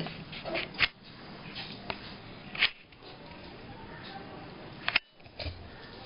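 Peeling the skin off a lotus root: short scraping strokes and a few sharp clicks at uneven intervals, about four of them standing out.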